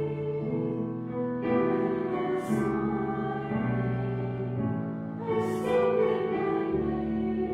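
Slow song with voices singing over piano accompaniment, held notes changing about once a second.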